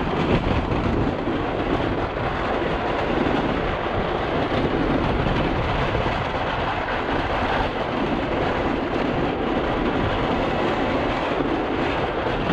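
Steady rumble of a snow-plow truck on the move, engine and road noise running on without a break.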